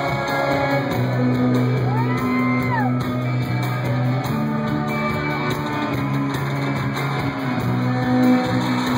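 Live rock band playing: a repeating bass line under guitar. A single sliding tone rises, holds and falls about two seconds in.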